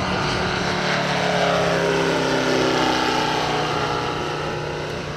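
A giant RC model Bücker Bü 133 Jungmeister's 400 cc radial engine running in flight as the plane passes. Its pitch drops partway through and the sound fades near the end.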